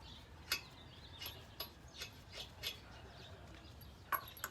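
Scattered light metallic clicks and clinks, about half a dozen over a few seconds, with a sharper one near the end, from tools and brake parts being handled.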